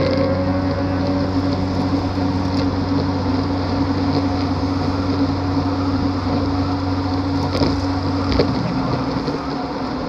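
Wind rushing over the microphone and tyre noise from a road bike riding at speed in a group, with a steady low hum that fades about eight seconds in.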